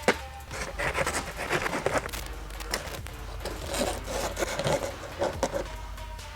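Hacksaw strokes cutting through a motorcycle's plastic rear sub tray, in irregular scraping bursts that ease off near the end. Background music runs underneath.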